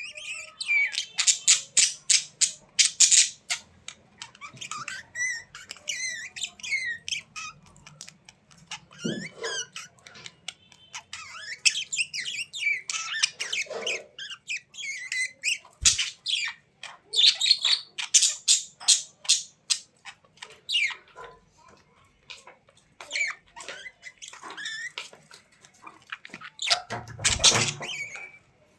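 Small pet birds chirping and squawking in rapid runs of sharp calls, with short gaps between clusters and a louder burst near the end.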